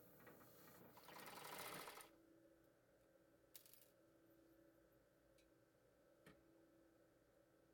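Vintage Bonis Never Stop fur sewing machine stitching, a fast even chatter that stops abruptly about two seconds in; afterwards only a faint hum and a couple of light clicks.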